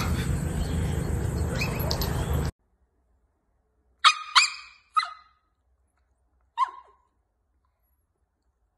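Steady outdoor background noise, cut off about two and a half seconds in. Then a young animal lets out four short, high-pitched cries that fall in pitch: three close together about halfway through, and one more a second and a half later.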